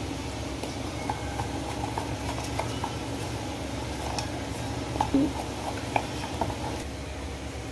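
Gram-flour batter stirred in a steel bowl: irregular clicks and taps of the spoon against the bowl, over a steady low background hum.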